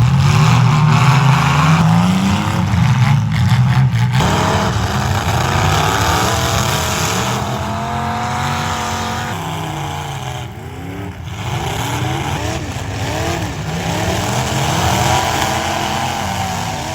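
Several car engines revving and running at once, their pitch repeatedly rising and falling, over a steady noisy wash.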